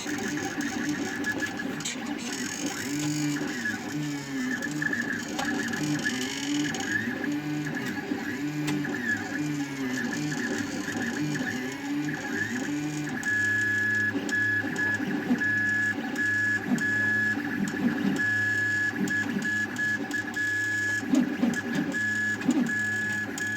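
Mechanical noise from a machine repeating in a regular cycle of about once a second; about halfway through, a high whine comes in, switching on and off over a low hum.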